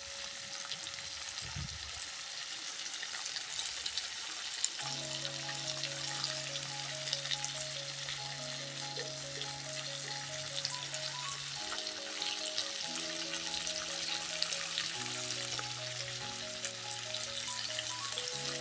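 Food frying in a hot pan: a steady sizzle dotted with small crackles and pops. Soft background music with held notes comes in about five seconds in.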